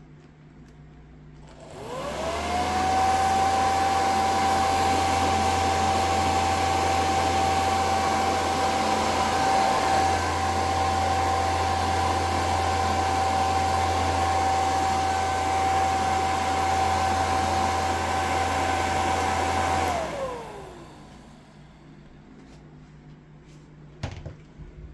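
Vintage Sunbeam professional hair dryer switched on about two seconds in: its motor whine rises quickly to a steady high tone over the rush of air and a low hum, and it runs steadily. Near the end it is switched off and winds down, the whine falling away, followed by a few faint clicks.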